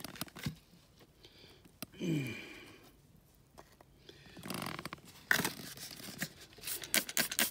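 Trigger spray bottle squirting water in quick repeated bursts to wash mud off a freshly dug stone point on a steel shovel blade. The squirting is at the very start and again from about five seconds in. About two seconds in there is a short, low sound that falls in pitch.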